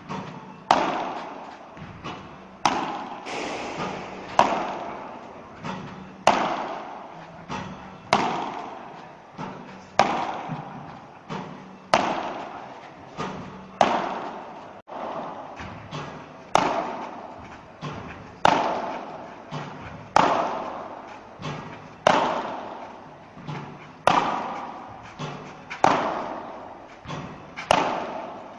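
Padel balls fed by a Spinfire ball machine and struck back with a padel racket: a sharp hit about every two seconds, with lighter knocks between. Each hit rings in the large glass-walled indoor court.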